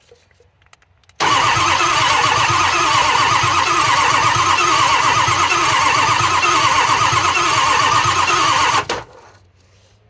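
Starter motor cranking a 2005 Ford F-250's 6.0 L Power Stroke V8 diesel, jumped straight from the battery, for about eight seconds with a steady rhythmic turnover, then cutting off abruptly without the engine firing. It is a crank-no-start with no injection control pressure, traced to a torn IPR valve screen holding the valve open.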